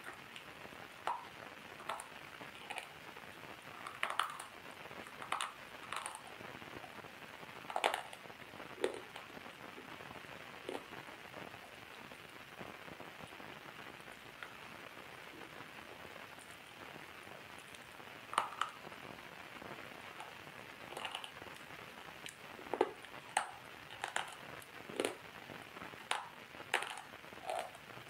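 Water drops falling one at a time at an irregular pace, each a short pitched plip, over a steady faint hiss. The drops thin out to almost nothing for several seconds in the middle, then come thicker again.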